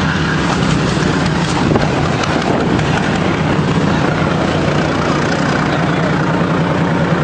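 Armoured personnel carrier's engine running steadily as the vehicle drives along, heard from on board, a constant low drone.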